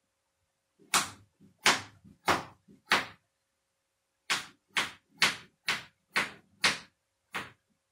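Knife chopping on a cutting board: four sharp chops, a pause of about a second, then seven more, at roughly two a second.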